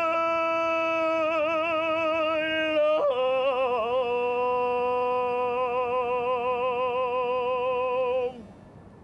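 A solo voice singing long, slow held notes with vibrato. About three seconds in it drops to a lower note and holds it, then stops shortly before the end.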